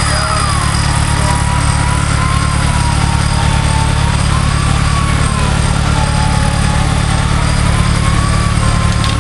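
Off-road competition 4x4's engine running steadily at low revs, with a high whine over it that drops at the start and then wavers slowly up and down in pitch.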